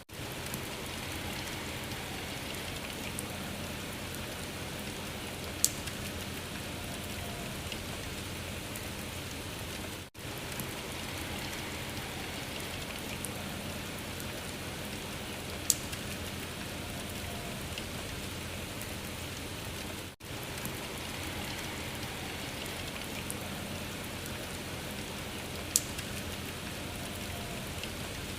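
Steady rain patter on a surface, a looped recording that repeats about every ten seconds with a brief dip at each seam. A single sharp click sounds three times, once in each loop.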